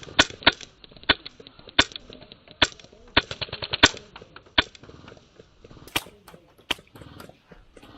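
HPA-powered airsoft rifle firing sharp single shots with a quick burst of about six a little after three seconds in, then a couple of more spaced shots near the end.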